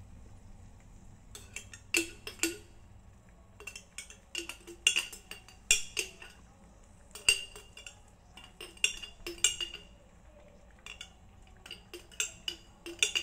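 A metal spoon clinking and scraping against the inside of a glass pasta-sauce jar as thick sauce is scooped out, in irregular clusters of sharp clinks.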